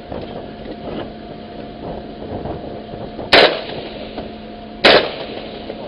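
Two single rifle shots about a second and a half apart, each with a short ringing tail, over a steady hum.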